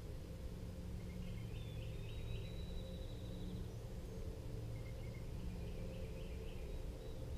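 Songbirds singing: two bursts of short repeated phrases and a brief high trill, over a steady low hum.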